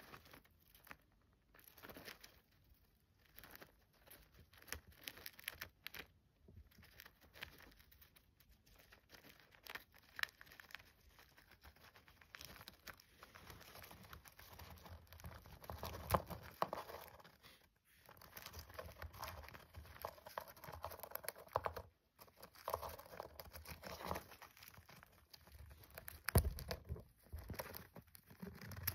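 A hamster gnawing at a peanut in its shell, mixed with the crackle and rustle of crumpled paper bedding as it shifts about. The sound is a run of small irregular clicks and crunches, busier in the second half.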